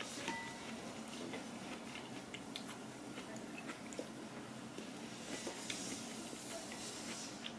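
Chewing of instant ramyeon noodles: soft, irregular mouth clicks and smacks over a faint steady hiss.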